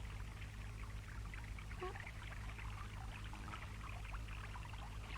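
Water trickling and dripping in small, irregular drops over a steady low hum.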